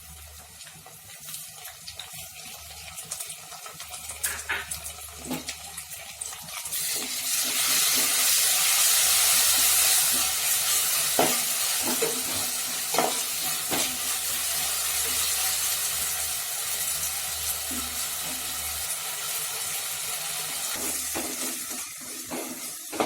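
Onions and ginger-garlic paste frying in oil in a pan, sizzling and being stirred, with a spatula knocking against the pan now and then. The sizzle swells much louder about seven seconds in and stays strong.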